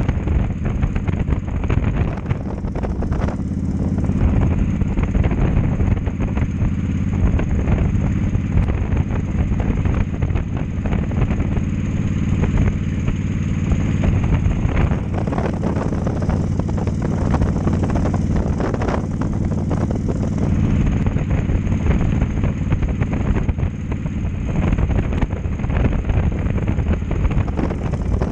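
Cruiser motorcycle engine running steadily at road speed, with wind and road noise mixed in.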